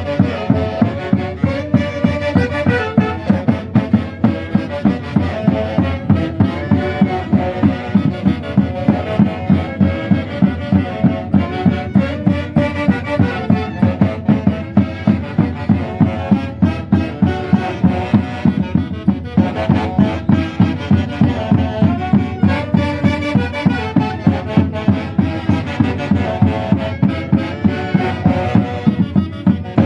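Andean folk band playing festive Santiago-style music: wind instruments carry a repeating melody over a steady beat of about two strikes a second.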